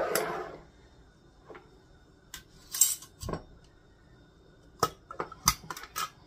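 Scattered clinks and taps of a metal measuring spoon against a small glass spice jar as dried oregano is spooned out, with a short scrape about three seconds in. There are a couple of heavier knocks, the loudest about five and a half seconds in.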